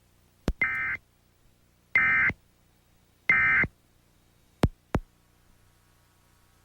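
Emergency Alert System end-of-message signal: three short, identical bursts of buzzing digital data tone (SAME code), about a second apart. A sharp click comes just before the first burst and two more clicks follow the last.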